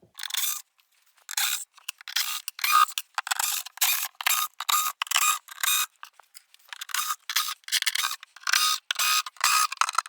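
T15 screws being backed out with a hand ratchet and socket: rapid ratchet clicking in short bursts, one burst with each back-stroke, repeating about every half second to second.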